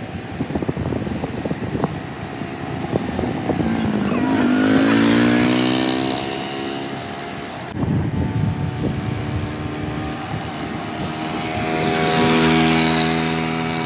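Small motorcycle engine running, its pitch rising as it speeds up and passes, loudest about five seconds in. After an abrupt cut, it passes again with a steadier note, loudest near the end.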